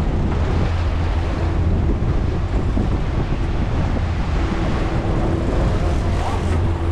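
Wind buffeting the microphone and sea water rushing and splashing along the hull of a boat at sea, over a steady low hum.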